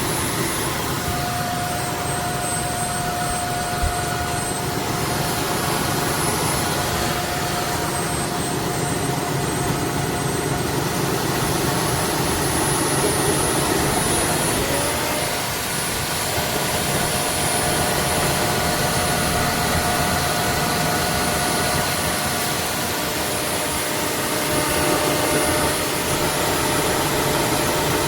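Roborock F25 cordless wet-dry vacuum running: a steady motor whine over a rush of air. Its pitch steps up and down a few times.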